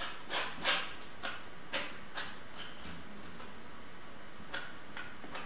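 Palette knife scraping thick acrylic paint across a stretched canvas in short strokes, about seven brief scrapes, most of them in the first half, over a steady background hiss.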